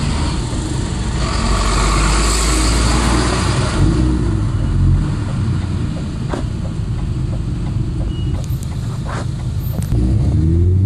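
Vauxhall Astra VXR's turbocharged 2.0-litre four-cylinder engine heard from inside the cabin, pulling up through the revs with a rising pitch twice, about three seconds in and again near the end, over steady road noise.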